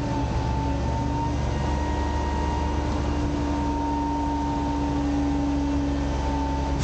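Autocar/Heil front-loader garbage truck's engine and hydraulics running while the packer blade cycles through the hopper, a steady low rumble with a steady whine held over it.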